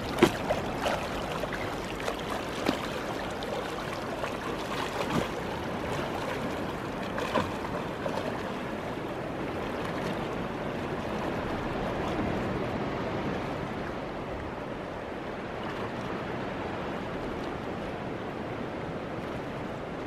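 Water sloshing and splashing steadily, with a few short, sharper splashes, the loudest just after the start.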